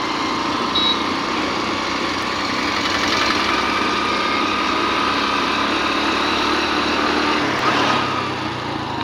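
Motorcycle engine running steadily while being ridden along a road, with a continuous rush of road noise; the engine note changes about seven and a half seconds in.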